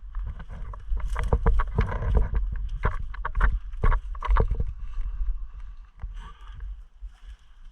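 Irregular quick knocks and thumps over a low rumble of movement on a GoPro, easing off after about five seconds.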